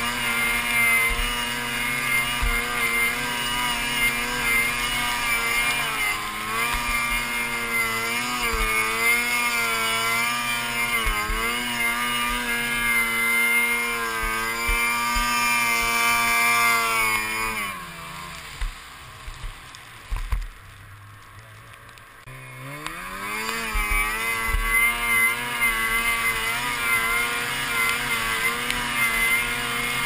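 Snowmobile engine running hard on a deep-powder hill climb, its pitch rising and falling with the throttle. About seventeen seconds in it drops away to a low, quiet run for about five seconds, then revs back up.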